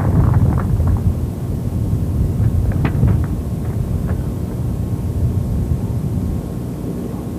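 Wind buffeting an outdoor camcorder microphone, a steady low rumble, with a few sharp clicks that are denser in the first second.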